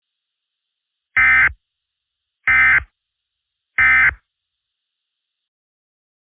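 Emergency Alert System end-of-message signal: three short bursts of warbling digital data tones, about a second apart, marking the close of the alert.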